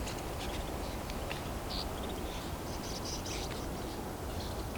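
A large flock of snow buntings calling as it passes overhead: many short, high chirps scattered over a steady low rumble.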